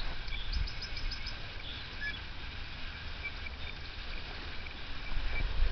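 Quiet garden ambience: a steady low rumble, with a quick run of faint, high, repeated bird chirps about half a second in.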